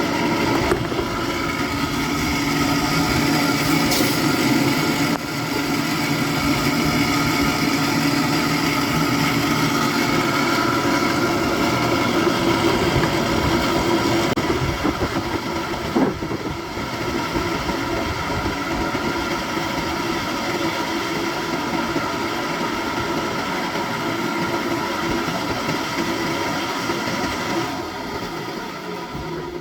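Machine running steadily, with a few brief clicks.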